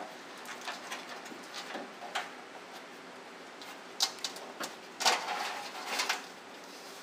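Handling noise as camera wiring is fished through a hole in a pickup's tailgate frame: scattered light rustles and taps of the cable and hands against the panel, a sharp click about four seconds in, and a longer scraping rustle about five to six seconds in as the cable is pulled through.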